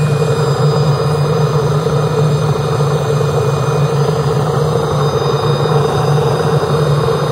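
Rotary scrap-iron melting furnace firing: the burner flame and its blower make a steady rushing noise over a constant low hum.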